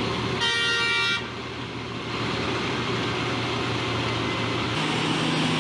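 A heavy mining machine's horn gives one short blast about a second long, followed by its diesel engine running steadily under load.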